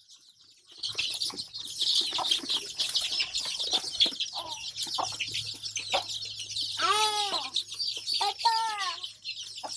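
Young chicks peeping busily in a group, from about a second in. Two short runs of louder, lower arching calls stand out near the end.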